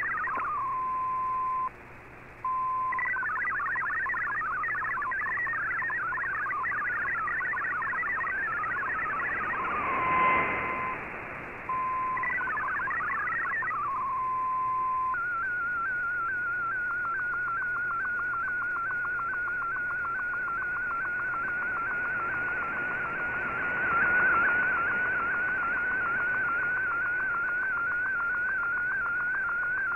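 Shortwave Radiogram's digital-mode broadcast received on AM: MFSK64 data as rapidly hopping electronic tones, broken by held single tones. About halfway through it switches to one continuous warbling tone with a fast regular ripple, the MFSK picture transmission of a colour image.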